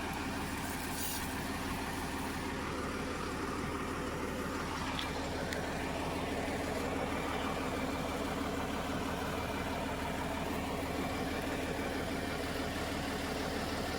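Truck engine idling steadily: a low, even hum that does not change.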